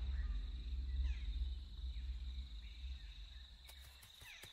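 Nature ambience: a steady high-pitched insect trill with faint bird chirps over a low rumble that fades away, and a few light clicks near the end.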